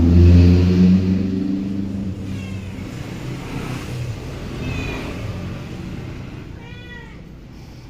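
A passing motor vehicle's engine fading away over the first couple of seconds, followed by a domestic cat meowing three times, the last meow near the end the clearest.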